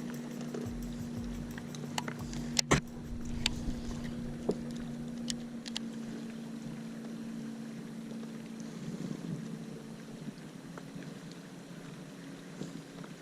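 Steady low hum of a fishing boat's motor, with a few scattered sharp clicks and knocks, the loudest a quick pair a couple of seconds in.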